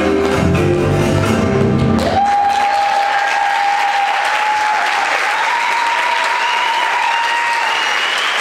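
Guitar-led performance music stops about two seconds in, and an audience breaks into applause, with a long high-pitched cheer held over the clapping.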